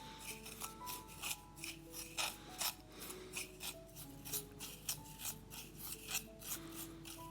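Repeated rasping, scraping strokes of food preparation, about two to three a second, over soft background music of single held notes.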